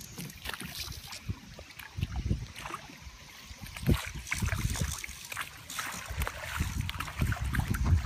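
A landing net dunked and shaken in the water, splashing and sloshing as it empties a load of cicadas, with a sharp splash about four seconds in. Near the end, fish splash at the surface as they take the floating cicadas. Wind buffets the microphone throughout.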